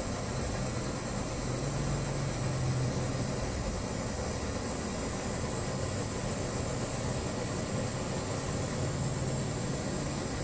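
Brass kerosene pressure stove burning with a steady hiss over a low hum. The hum swells slightly a couple of seconds in and again near the end.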